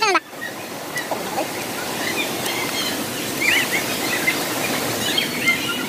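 Steady rush of falling water from the waterfall, with short bird chirps a few times around the middle and near the end.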